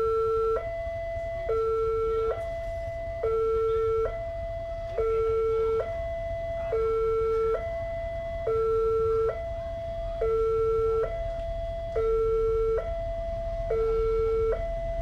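Railway level-crossing warning siren sounding a steady two-tone alarm, a lower and a higher tone alternating about once a second, the lower tone louder. It warns that a train is approaching the crossing.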